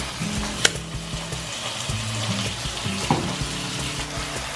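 Water running from a bathtub faucet into the tub as it fills, a steady splashing hiss, over background music. A brief sharp click about half a second in.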